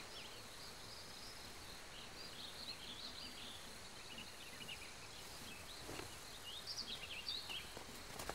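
Faint outdoor ambience with small birds chirping on and off, the chirps growing busier in the last few seconds.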